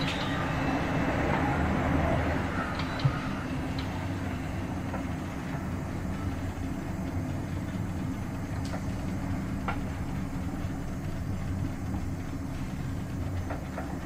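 Class 465/9 Networker electric multiple unit running, heard from aboard its motor car: a steady low hum with occasional clicks from the rails and a single knock about three seconds in.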